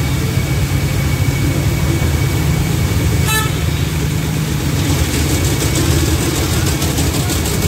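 Steady road-traffic rumble with a short vehicle horn beep about three seconds in.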